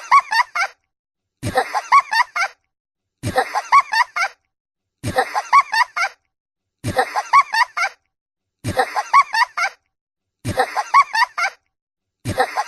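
A short, high-pitched laughing sound effect, a quick run of 'ha' syllables under a second long, looped over and over about every two seconds with silence between.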